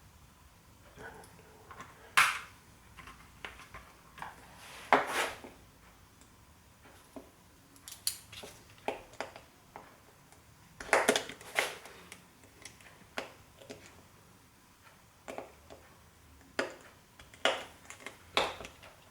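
Hand tools clicking and clinking against the metal parts of an old hard drive during disassembly, in irregular knocks with short pauses between them, the loudest about two seconds in, at five seconds, and a quick cluster around eleven seconds. The part is resisting and does not come apart.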